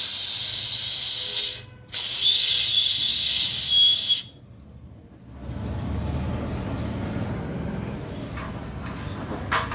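Compressed-air gun blowing out a motorcycle's air-filter housing in two long hissing blasts that cut off about four seconds in; a low rumble follows.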